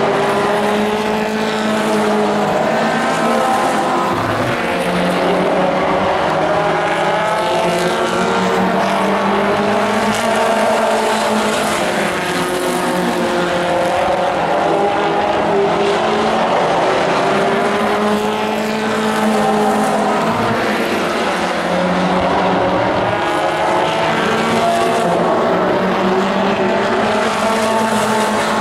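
A pack of Pro4 race trucks running laps on a short oval track. Several engines overlap, their pitch rising and falling every few seconds as they rev down into the turns and back up on the straights.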